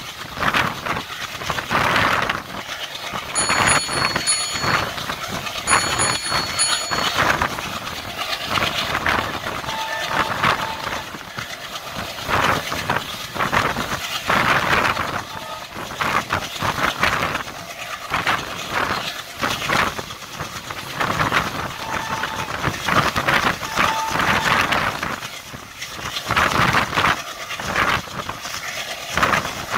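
Passenger train coach running at speed, heard at its open doorway: a steady rumble and irregular clatter of the wheels on the rails, mixed with rushing air, the level swelling and dropping throughout.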